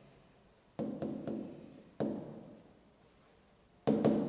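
Writing on the glass of an interactive touchscreen board: a few sudden taps and strokes, about one, two and four seconds in, each fading away over most of a second.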